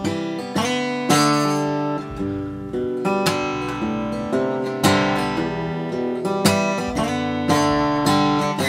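Acoustic guitar strumming a slow chord pattern, each chord left to ring into the next.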